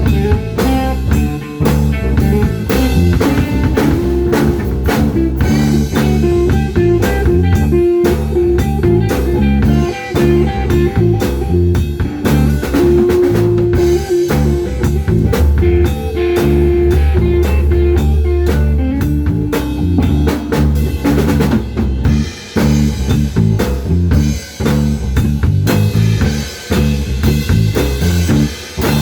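Instrumental rock music: a drum kit with snare rimshots keeping a steady beat under electric guitar and bass.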